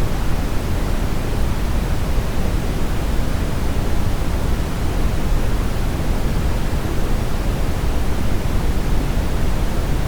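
Brown noise: a steady, even rushing hiss weighted heavily toward the low end, without rhythm or change.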